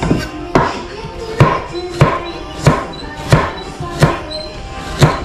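Chef's knife chopping shallots on a wooden cutting board: about eight evenly paced chops, each a sharp knock of the blade on the board.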